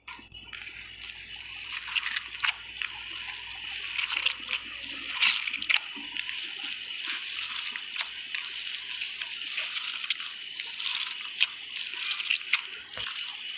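A hand kneading and squeezing raw beef mince in a plastic bowl, the mixture wet with a little oil added for binding: continuous wet squishing with frequent small smacks.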